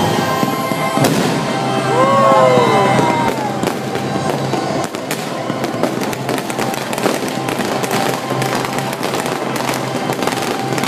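Fireworks display: aerial shells bursting and crackling in rapid, overlapping bangs, with music playing steadily underneath.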